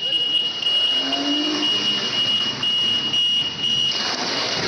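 A steady, high-pitched electronic alarm tone, held almost without a break over background noise.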